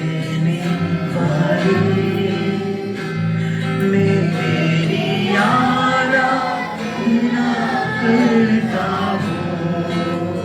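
Live worship music: held chords and guitar, with a voice singing over them, the singing strongest past the middle.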